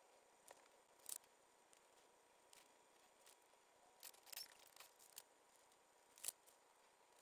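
Faint rustles of a paperback's pages being handled as it is read, a few brief crisp ones over quiet room tone, the loudest about a second in and again about six seconds in.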